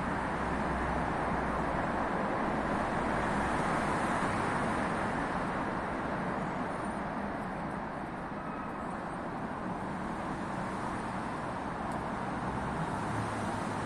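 Steady, even rush of road traffic and ambient noise, a little louder in the first few seconds.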